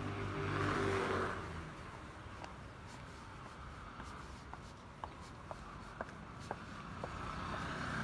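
A vehicle swishing past on the wet street during the first second or so. After it, footsteps on wet pavement tap at a walking pace of about two a second, and the street noise swells again near the end.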